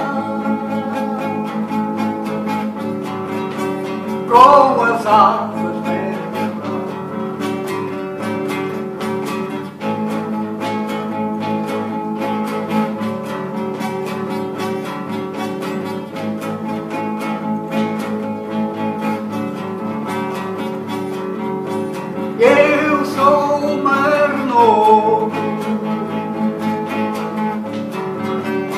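Acoustic guitar strummed in a steady rhythm, mostly as an instrumental passage, with a man's voice singing a short phrase about four seconds in and again near the end.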